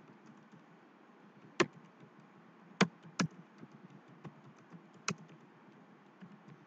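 Typing on a computer keyboard: a quick run of faint key clicks, with a few louder, sharper keystrokes among them.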